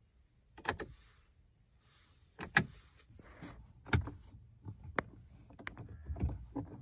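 A series of sharp plastic clicks, about nine, irregularly spaced: the dashboard radio buttons and door-panel switches of a 2007 Kia Picanto being pressed and handled.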